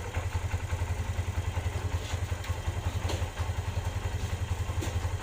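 Kawasaki Barako 175's single-cylinder four-stroke engine idling steadily with an even, quiet beat, having started on one kick after a new spark plug cured its hard starting. A few faint light clicks sound over it.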